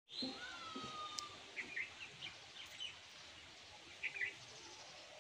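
Birds chirping faintly: a long, slightly falling whistle near the start, then a few short chirps scattered through, over a soft background hiss.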